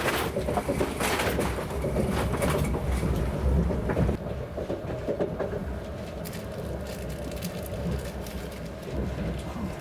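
Cabin noise of an ES1P Lastochka train car hauled by a diesel locomotive: a steady low rumble with scattered sharp clicks and knocks, most of them in the first few seconds.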